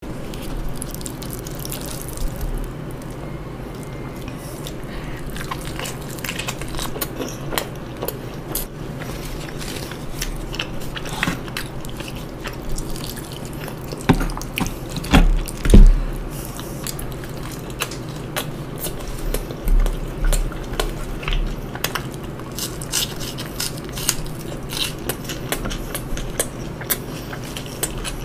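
Eating sounds: chewing with small clicks and smacks, and a few louder knocks about halfway through, over a steady low hum.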